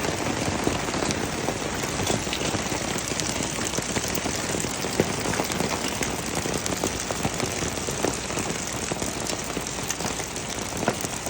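Hail falling hard: a dense steady hiss with many sharp little ticks of hailstones striking, easing slightly toward the end.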